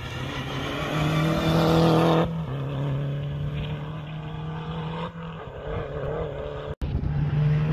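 Peugeot 207 rally car engine revving hard as it passes and pulls away, with an upshift about two seconds in. After a very brief cut near the end, another rally car's engine is heard approaching and rising.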